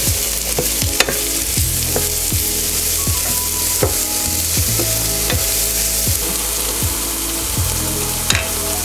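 Diced onion and red bell pepper sizzling in a frying pan, stirred with a wooden spatula. The steady frying hiss runs throughout.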